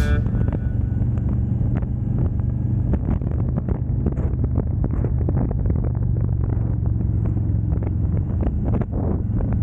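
Harley-Davidson Road Glide's V-twin engine running steadily at cruising speed, a constant low rumble with no revving, heard from a mic on the moving bike, with many short crackles of wind on the microphone.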